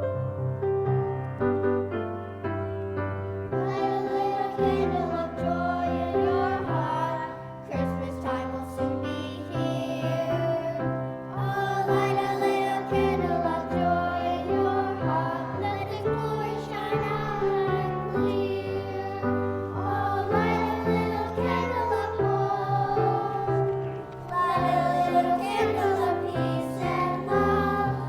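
Children's choir singing a song with keyboard accompaniment; the first few seconds are accompaniment alone before the voices come in.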